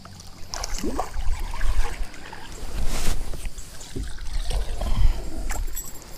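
Small fishing boat on the water: an uneven low rumble of the hull and gear being moved about, with a few short sharp clicks, the clearest about three seconds in.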